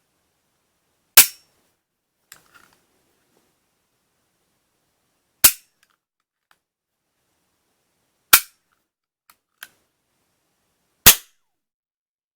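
Toy cap-gun revolver firing four caps, each a sharp, loud crack, a few seconds apart, with faint small clicks between the shots.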